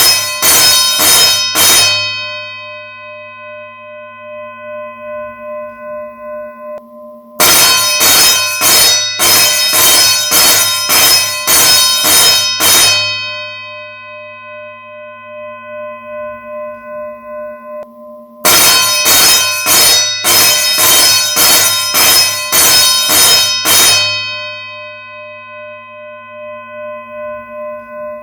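School bell ringing in loud stretches of repeated strikes about five seconds long, each followed by the bell's ring fading for about five seconds before the next stretch starts. A stretch is ending as the sound begins, and two more follow.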